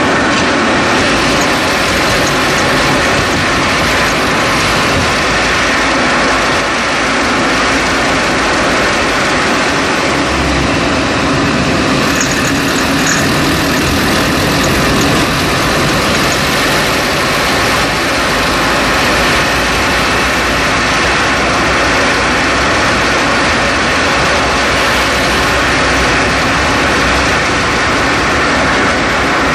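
2011 Chevrolet Cruze making a loud, steady metallic rattle with its engine running: a persistent fault whose cause was never found.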